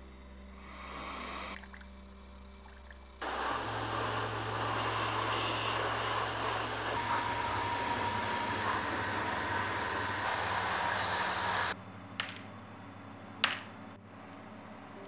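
Airbrush spraying paint: a long, even hiss of about eight seconds that starts and cuts off abruptly, with a steady low hum underneath. A shorter, quieter hiss comes about a second in, and two sharp clicks follow near the end.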